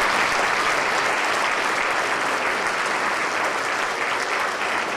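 Audience applauding, steady, easing slightly toward the end.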